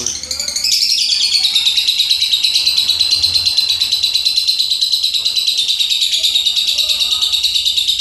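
Caged Fischer's lovebird giving a long, unbroken chattering song, a fast rapid-fire trill held without pause. This is the long 'ngekek' that lovebird keepers prize.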